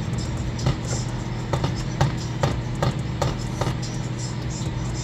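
Tarot cards being handled and set down on a table: a run of short light taps and clicks over a steady low hum.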